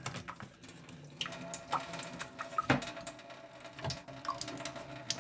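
Thin stream of water trickling from a PUR faucet-mount filter housing into a stainless steel sink as its top is unscrewed and the cartridge lifted out, with several light plastic clicks and knocks from the handling.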